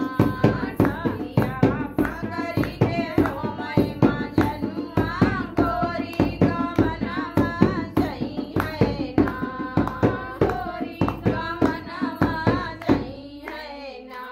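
Women singing a dehati lok geet (village folk song) together, voices unaccompanied except for a steady rhythm of hand-clapping. About a second before the end the clapping and the song stop, leaving one voice trailing off.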